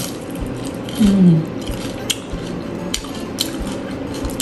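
Light clicks of utensils on a plate while crispy fried sticky-rice pies are being eaten, with a few sharp clicks scattered through. A short, low falling hum about a second in is the loudest sound.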